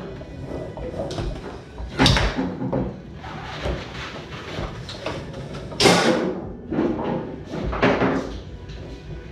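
Foosball play on a Tornado table: irregular hard knocks and clacks of the ball and rods, with two loud sharp hits about two seconds in and about six seconds in.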